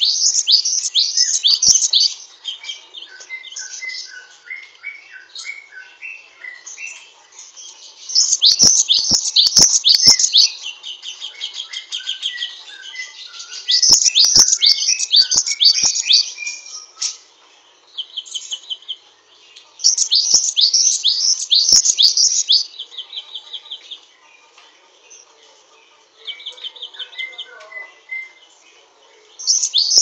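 Cinereous tit (glatik wingko) singing: loud bursts of rapid, high, sharply falling notes every few seconds, each bout running into a short buzzy trill. Softer, lower chirps fill the pauses, and sharp clicks come with some of the bursts.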